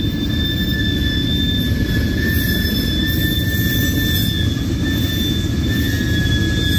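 Railroad tank cars rolling past, their steel wheels rumbling on the rails. A steady high-pitched wheel squeal holds one pitch throughout.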